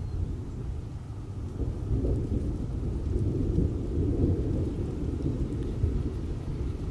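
Low rolling thunder rumbling, swelling about two seconds in and holding.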